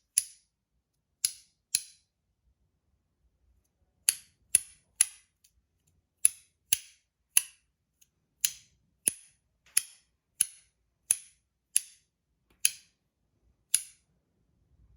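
Zirconium magnetic haptic coin fidget (Mini Milk Cap) being clicked: a run of sharp, crisp snap clicks about every two-thirds of a second, with a pause of about two seconds near the start.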